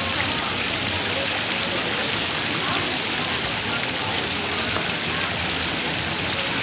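Fountain water splashing steadily into its basin.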